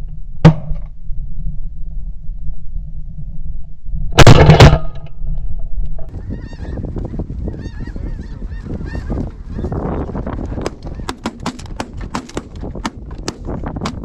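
A sharp crack about half a second in, then a very loud quick volley of shotgun blasts around four seconds, over wind on the microphone. After that come goose calls, a busy chorus of honking and yelping that grows denser near the end.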